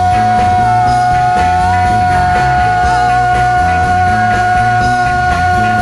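Live psychedelic rock band playing an instrumental passage: a single high electric lead guitar note is sustained steadily through the whole stretch, over a moving bass line and drums.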